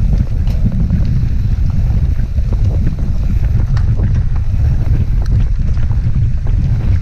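Wind buffeting the microphone of a camera on a mountain bike riding fast down a dirt trail: a loud steady low rumble, with scattered rattles and knocks from the bike and tyres over rough ground.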